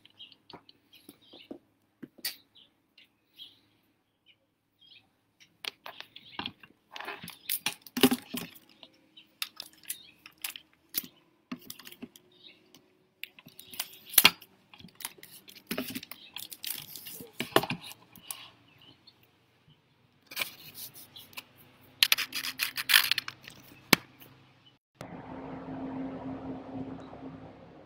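Handling noise on the camera as it is set up: irregular taps, knocks and scrapes close to the microphone. About 25 seconds in, a steady hum with a low tone begins.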